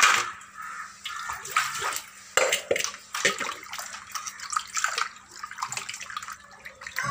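Water sloshing and splashing in a steel bowl as hands rub and rinse cut fish pieces in salt-and-turmeric water to wash off the slime, in irregular swishes, with a louder splash of water poured in at the start.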